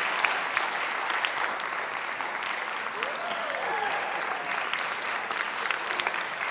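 Audience applauding steadily, with a voice briefly calling out about three seconds in.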